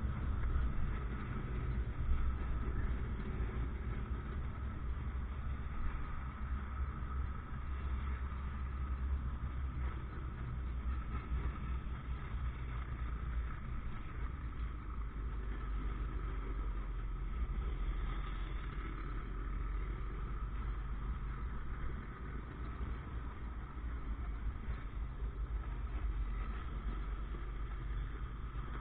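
Motorcycle running steadily under way on a street, with a steady low rumble.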